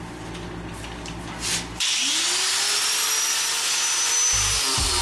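A handheld grinder starts up about two seconds in, its whine rising as it spins up, then runs steadily, grinding paint off the steel lower edge of a 1969 Chevy pickup door.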